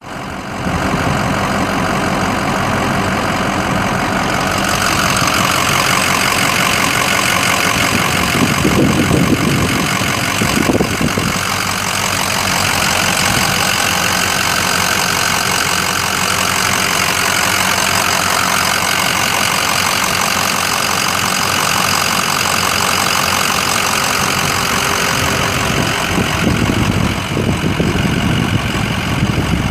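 A 2006 Ford F350 Super Duty's 6.0L V8 turbo diesel engine idling steadily.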